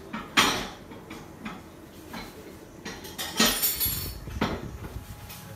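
Kitchen oven door being opened: a few sharp metallic clacks, with a rattle of the door and baking tray about three and a half seconds in. A low hum comes in from the open oven after that.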